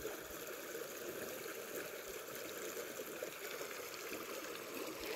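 Steady rushing of a fast-flowing burn, a constant even wash of running water.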